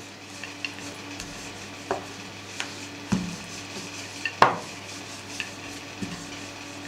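Wooden rolling pin rolling out dough on a floured baking tray, with a few scattered light knocks and clatters of the pin and tray, the loudest about four and a half seconds in.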